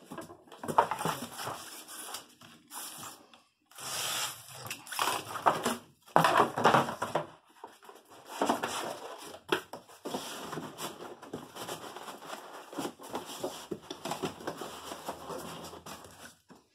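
Corrugated cardboard being cut with a utility knife and then handled, with sheets slid and pressed on a table: irregular scraping and rustling with a few sharper knocks.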